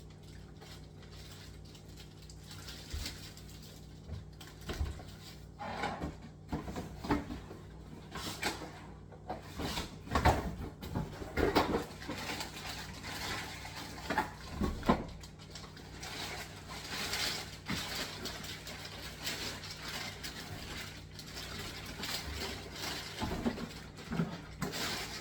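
Scattered knocks, clicks and rustling from unboxing and handling a robot vacuum's dock and its parts, busiest in the middle, over a steady low hum.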